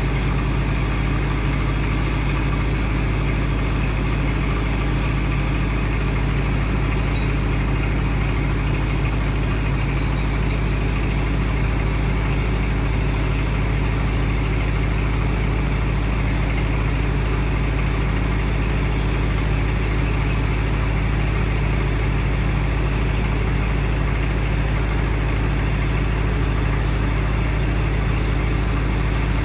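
An engine running steadily at one speed, a low drone with a steady hiss over it, during TIG welding on steel pipe. A few faint, short high chirps come through now and then.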